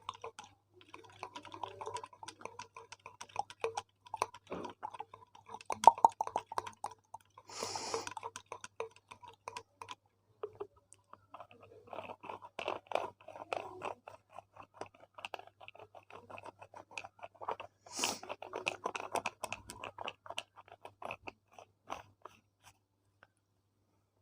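Close-miked ASMR trigger sounds: irregular runs of small clicks and crackles, with a brief hissing swish about eight seconds in and another about eighteen seconds in.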